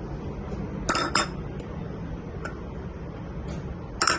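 Crockery clinking: two sharp clinks about a second in, a few faint ticks, then two more clinks near the end, over a steady low hum.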